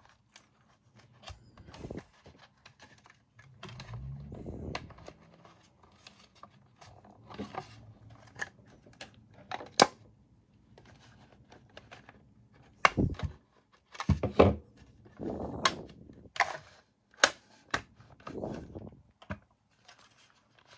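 Plastic housing parts of a Bodum coffee grinder being handled and pushed together: scattered plastic clicks, knocks and scrapes, with several sharp snaps in the second half.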